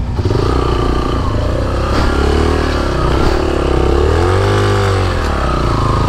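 Motorcycle engine revving up and down, its pitch rising and falling repeatedly as it pulls up a steep off-road slope.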